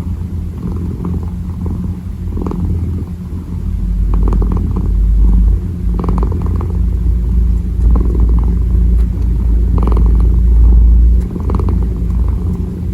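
Kitten purring close to the microphone: a steady low rumble with a faint rise and fall every second or two. It grows louder about four seconds in and drops back near the end.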